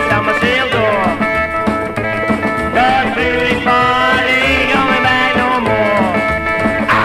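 Rockabilly band playing an instrumental passage: electric guitar lead with bent notes over a steady bass and drum beat, ending in a long downward slide.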